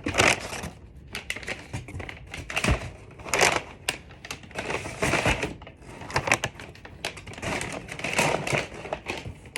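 Packaging crinkling and rustling as bulbs and their bags are handled, with irregular clicks and knocks.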